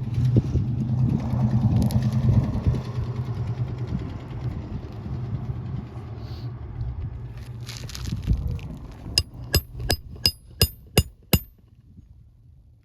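Hammer driving a roofing nail through asphalt shingles: six quick, ringing metal strikes about half a second apart, near the end. Earlier, an engine runs in the background and fades out.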